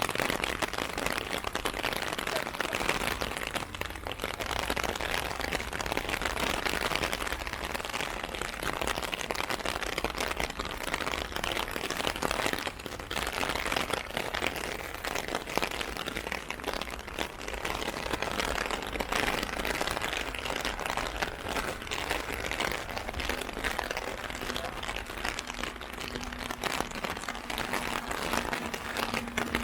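Heavy rain pattering steadily on an umbrella overhead, a dense, even patter.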